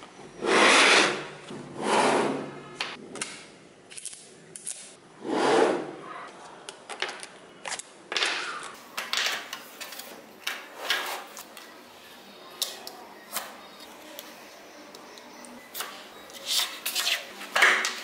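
Small neodymium magnetic balls being handled: a few longer rattling scrapes in the first several seconds as panels of balls are pressed and slid together, then a run of short sharp clicks as balls snap into place.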